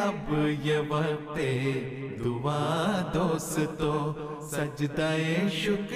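A single male voice singing an Urdu nazm (devotional poem) in a slow, chant-like melody, holding long wavering notes.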